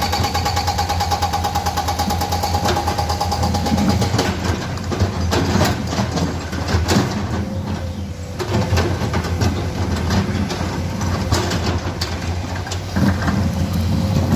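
Komatsu hydraulic excavator's diesel engine running steadily, with a fast clatter and a whine for about the first four seconds, then irregular knocks and clanks of the working attachment.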